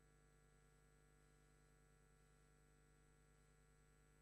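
Near silence with a faint, steady hum.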